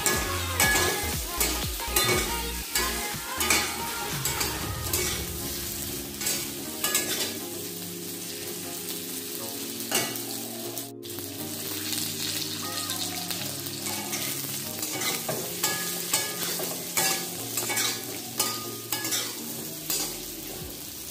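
Pieces of steamed rice-flour fara being stir-fried in an aluminium kadai with mustard seeds and cumin: oil sizzling steadily while a metal spatula scrapes and knocks against the pan at irregular intervals.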